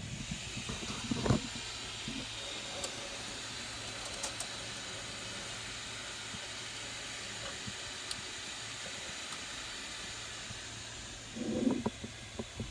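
Steady machine hiss, with a few light knocks and clicks near the start and near the end.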